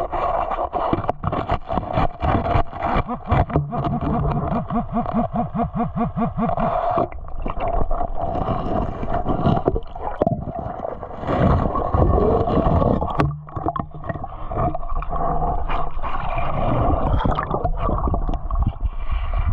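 Creek water sloshing and gurgling around someone wading and sweeping an underwater metal detector, with irregular splashes and knocks over a steady hum.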